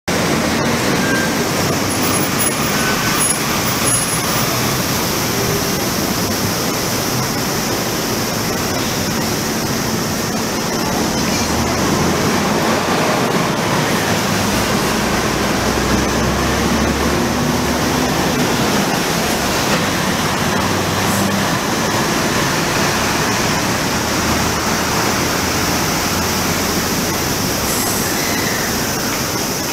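Steady city street ambience dominated by road traffic noise, with a heavier low vehicle rumble passing about halfway through.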